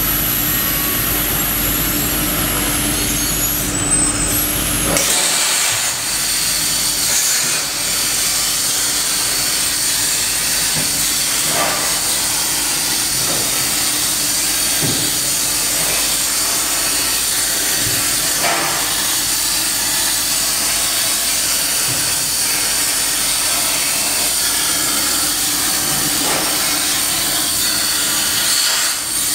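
CNC plasma cutting torch cutting steel plate: a loud, steady hiss with high whistling tones over it. About five seconds in, a low hum drops away and the hiss goes on evenly, with a few faint knocks.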